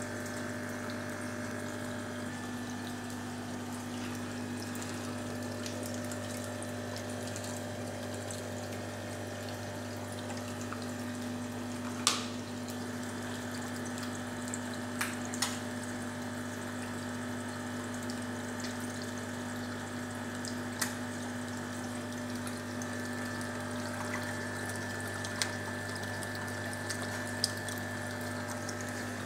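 Aquarium filter pump running with a steady low hum over continuous water trickling and splashing, broken by a few sharp clicks.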